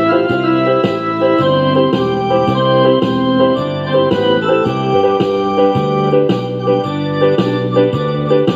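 Background music on an electronic keyboard with an organ-like sound: sustained chords that change in short, regular steps.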